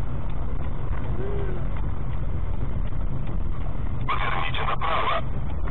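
Steady low rumble of a car's engine and tyres, heard from inside the moving car. About four seconds in come two short, louder, higher-pitched sounds back to back.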